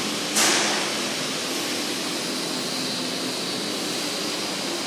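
Steady fan-like rushing noise with a faint low hum, with a short loud whoosh about half a second in.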